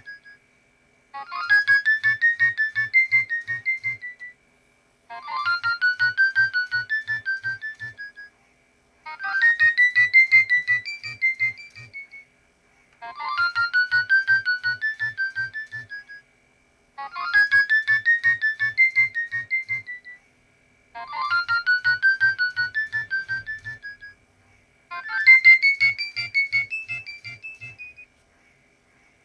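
Nokia 6820 mobile phone ringtone: a short electronic melody of stepped, mostly rising notes about three seconds long, repeated seven times with a pause of about a second between each.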